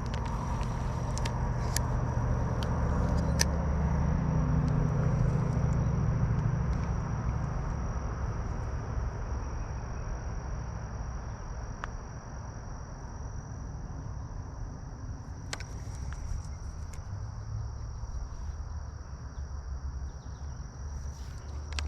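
Insects droning steadily in one high tone, over a low rumble that swells in the first few seconds and then eases off, with a few faint clicks.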